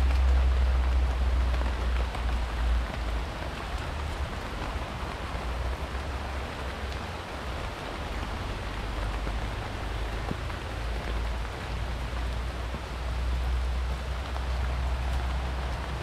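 Steady rain falling on leaves and undergrowth, an even hiss, under a low rumble that is strongest at the start and swells again near the end.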